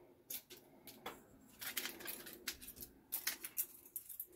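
Crinkling plastic packaging and light clicks as small snoot accessories (colour gels and a honeycomb grid) are handled and unwrapped, in a run of irregular short crackles.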